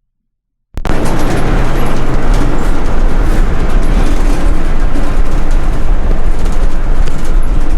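Loud, steady rumble of a city bus's engine and road noise heard from inside the moving bus. It cuts in suddenly after a moment of silence, about a second in.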